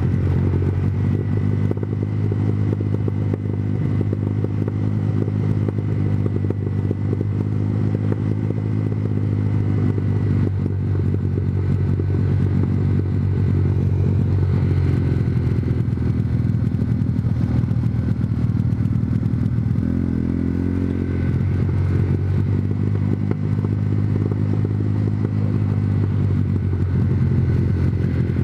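Honda CBR125R single-cylinder engine running steadily at road speed, with a brief change in revs about twenty seconds in.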